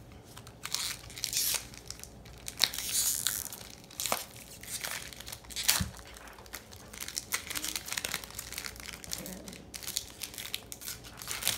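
Foil wrapper of a Pokémon TCG booster pack crinkling and being torn open by hand, in irregular crackles with a couple of louder rips.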